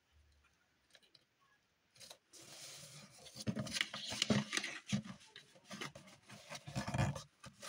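Paper being handled on a work table: rustling and sliding sheets with light knocks and taps. It starts about two seconds in, after a near-silent start.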